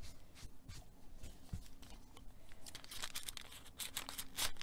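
Folded paper packet rustling and crinkling in the hands as it is handled and opened, with scattered small ticks that grow busier in the second half.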